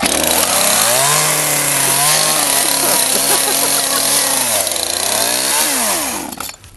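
Gasoline chainsaw engine starting abruptly and revving hard, its pitch climbing in the first second and held high. It dips and picks up again, then winds down and cuts off shortly before the end.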